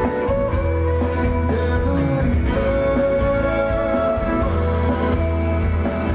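A live band playing through a concert sound system, with guitar to the fore over a steady bass, heard from among the audience.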